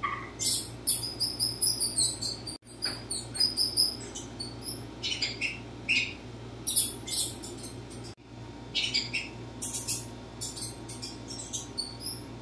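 Recorded mouse squeaks: many short, very high-pitched squeaks in quick clusters, cut off twice for an instant.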